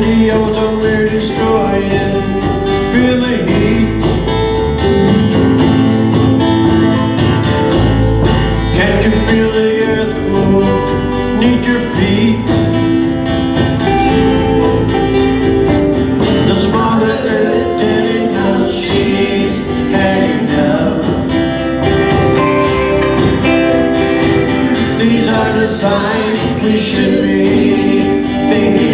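Live band music: a strummed Takamine acoustic-electric guitar with other guitar, and a man singing through parts of it.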